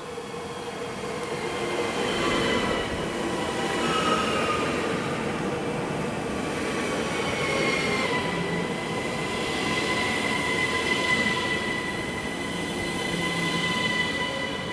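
ÖBB class 4744 Cityjet electric multiple unit (Siemens Desiro ML) rolling into the platform and braking, growing louder as it draws alongside. Its high electric whine falls in pitch over the first eight seconds or so, then settles into a steady high whine and squeal as it slows toward a stop, over the rumble of the wheels.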